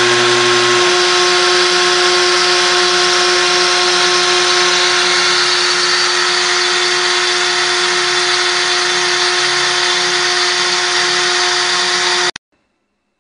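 CNC router spindle running with a steady high-pitched whine while a 2 mm cutter mills 3 mm acrylic sheet. A lower motor hum changes pitch about a second in as the machine's motion changes. The sound cuts off suddenly near the end.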